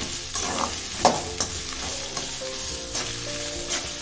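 Sliced onions frying in oil in an aluminium kadai, turned with a metal slotted spoon: a steady sizzle broken by about four sharp clinks of the spoon against the pan, the loudest about a second in.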